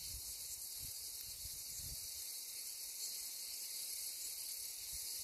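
Outdoor ambience: a steady high-pitched hiss, with occasional faint low rumbles of wind buffeting the microphone.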